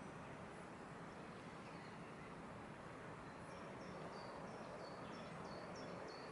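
Faint outdoor ambience: a steady low hiss of open-air background. About halfway through a bird starts a quick series of short high chirps, two or three a second, running on to the end.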